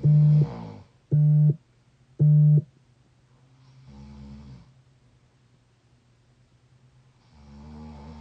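A sleeping young adult snoring: three short, loud, squeaky tones about a second apart, then two softer, breathy snores a few seconds apart.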